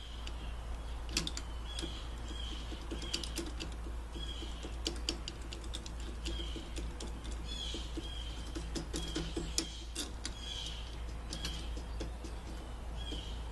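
Light metallic clicks and taps of the spring tensioner hardware being fitted back onto the garage door opener trolley. Under them a small bird chirps in short high notes about once a second, over a steady low hum.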